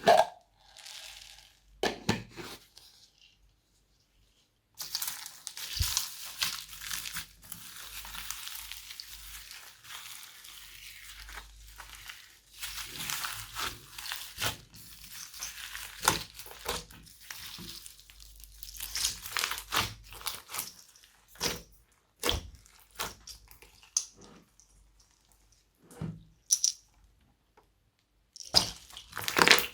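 Hands kneading, stretching and pressing slime: sticky crackling and popping with many short sharp clicks, in long stretches broken by brief pauses.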